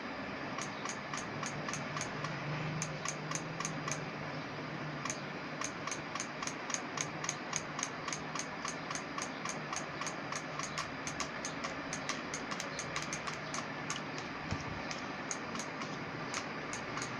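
A fast, even mechanical ticking, about three to four ticks a second, over a steady hum and hiss.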